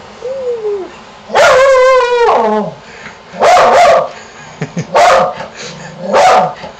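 Welsh Corgi howling at someone outside the window: one long wavering howl about a second in that slides down at its end, then three shorter bark-howls a little over a second apart.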